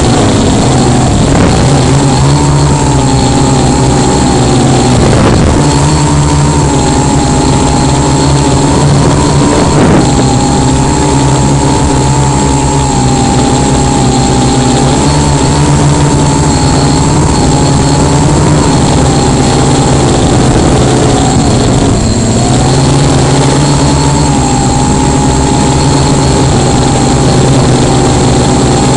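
Tricopter's motors and propellers droning loudly in flight. Their pitch dips and rises a little every few seconds as the throttle changes.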